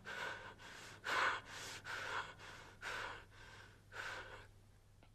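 A man panting hard, short noisy breaths in and out about two a second, growing fainter and sparser near the end.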